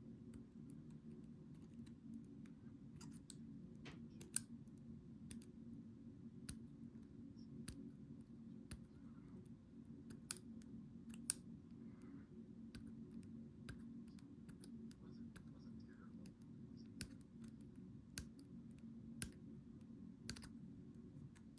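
Small, sharp metal clicks at irregular intervals from handling the disassembled ASSA 700 lock core and its pins, over a steady low hum.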